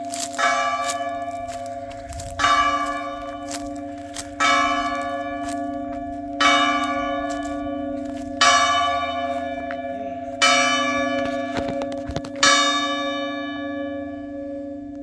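A church bell striking the hour of eight o'clock with slow single strokes about two seconds apart, seven of them here. Each stroke rings on and overlaps the next, and the last one slowly dies away.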